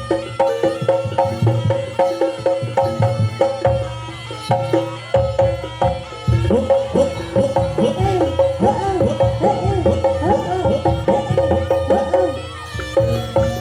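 Live East Javanese jaranan gamelan music: fast hand-drum (kendang) strokes over a held metallic note, joined from about six seconds in by a reedy wind melody with sliding, wavering notes.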